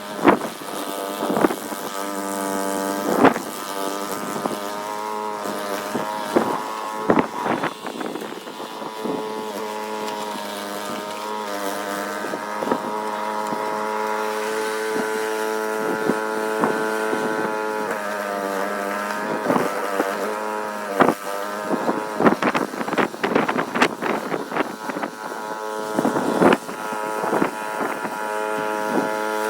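An engine running steadily, its pitch dipping and recovering a few times, with scattered sharp knocks throughout.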